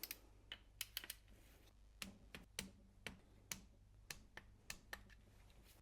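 Faint, sharp clicking of a ratchet wrench, about a dozen and a half clicks at irregular spacing, as bolts on the timing chain guides of an Audi 4.2 FSI V8 are tightened to torque.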